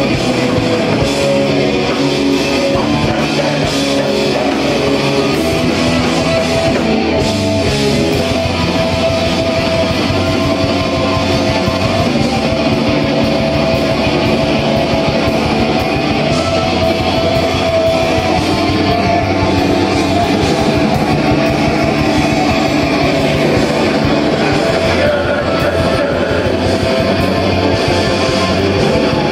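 A heavy rock band playing live and loud: electric bass, guitar and drums in a dense, continuous wall of sound, with the riff changing about seven seconds in.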